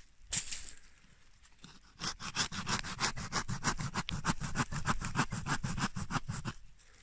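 Small hand saw cutting through a tree root in a dug hole: fast, even back-and-forth rasping strokes, several a second. They start about two seconds in and stop about half a second before the end.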